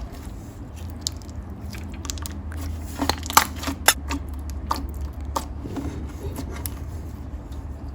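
Thick, glossy slime worked by hand, giving irregular sharp clicks and bubble pops, with the loudest pops about three to four seconds in.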